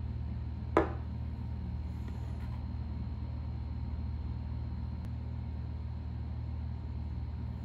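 Steady low mechanical hum in a quiet room, with one short sharp click about a second in.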